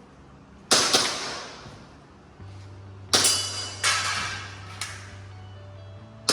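Gas airsoft pistol fired in quick pairs, double-taps as on paper IPSC Action Air targets: about five sharp cracks, each with a short ringing tail. A steady low hum comes in about two and a half seconds in.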